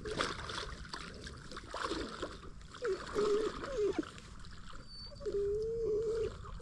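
A yellow Labrador puppy whining in short, wavering notes, the longest near the end, over light splashing of water.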